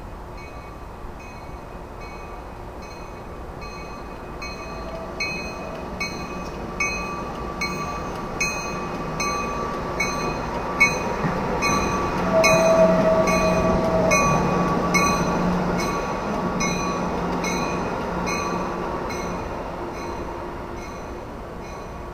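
Amtrak AEM-7 electric locomotive and its passenger cars rolling past at low speed, the wheels clicking over rail joints a bit more than once a second. The sound is loudest about midway as the locomotive goes by, with a brief high squeal from the wheels.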